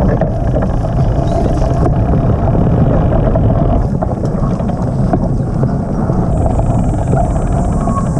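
Steady, loud road-travel noise of riding along: a low rumble with wind rushing over the microphone. It cuts off abruptly at the end.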